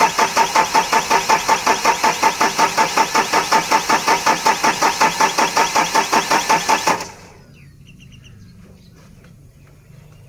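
The Mahindra Bolero Pickup's diesel engine is turned over by its starter motor, with even compression pulses at about five a second, for about seven seconds, then stops without firing. The engine cranks but won't start: the no-start fault being traced after bleeding air from the fuel line.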